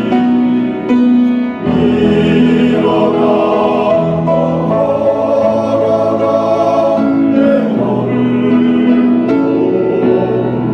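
Church choir singing a hymn with instrumental accompaniment; the voices hold a long chord from about two seconds in until about seven and a half seconds, with a repeating accompaniment figure before and after it.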